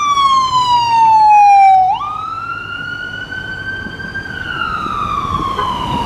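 Ambulance siren wailing, loud: a slow fall in pitch, then about two seconds in a sudden drop in level and a sharp jump back up, a slow rise and another slow fall.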